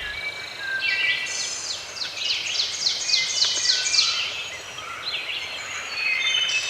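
Wild songbirds singing. About a second in, one bird gives a fast run of repeated down-slurred high notes, roughly four a second, for about three seconds, with other birds chipping around it.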